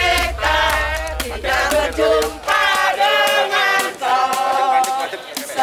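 A group of people singing together in unison, in short sung phrases.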